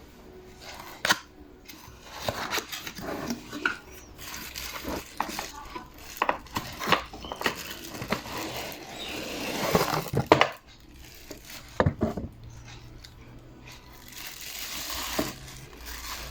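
Irregular clicks, knocks and rustling from small hard objects and packaging being handled, with a few sharper knocks about a second in and around ten to twelve seconds in.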